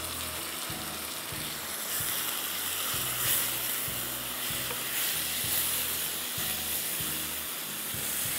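Sliced tomatoes sizzling in hot oil with fried onions in a wok, stirred with a spatula that scrapes and taps against the pan again and again.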